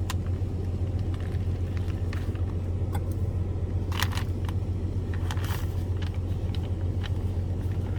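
Handling of a flameless ration heater pouch as water is added: light clicks and two short bursts of crinkling about four and five and a half seconds in, over a steady low hum.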